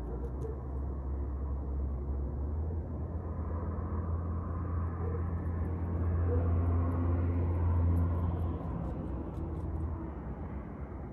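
Low engine rumble that builds up, peaks, and then drops away about eight and a half seconds in, like a motor vehicle passing at a distance.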